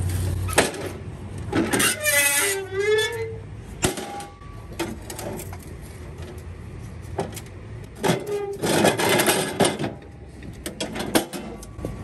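Aluminium folding wheelchair ramp being folded and handled: repeated metal clanks, clicks and scraping as the sections close together. A short wavering voice-like sound comes about two seconds in.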